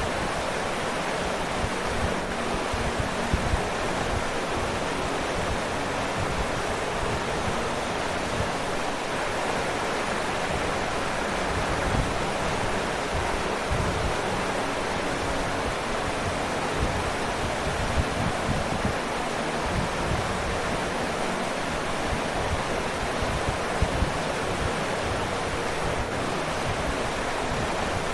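Waterfall: a steady rushing of falling water, with small splashing surges now and then.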